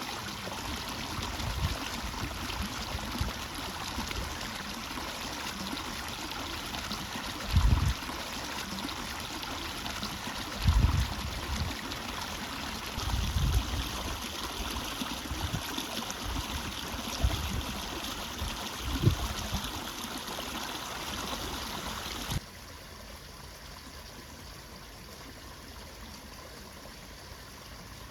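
Water running and trickling steadily where an inflow drops into a reservoir pond, with a few brief low thumps on the microphone. About 22 seconds in the level drops suddenly, and the water goes on more quietly.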